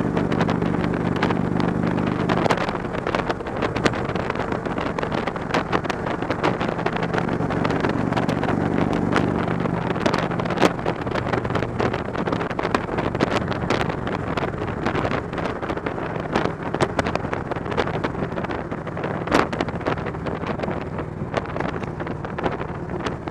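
Touring motorcycle's engine running steadily at freeway cruising speed, heard from the rider's seat. Heavy wind buffeting on the microphone brings many sharp pops and at times covers the engine hum, which is clearest near the start.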